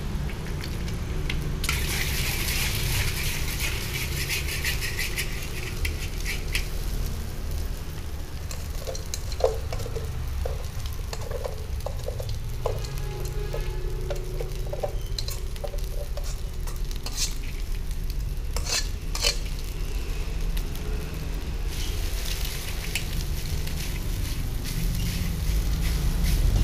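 Egg sizzling in a large metal wok, then cooked rice tipped in from a metal bowl and stirred with a spatula that clicks and scrapes against the pan. The sizzling is loudest early on and comes back near the end as the rice fries. A steady low rumble runs underneath.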